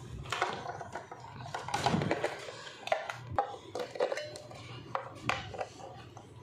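Small plastic clicks and clatter as AA batteries are handled and pressed into a plastic toy gun's battery compartment, with a denser rustle of handling about two seconds in.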